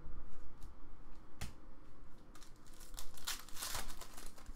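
Foil trading-card pack wrapper being crinkled and torn open, loudest around three to four seconds in, with a single sharp tick earlier.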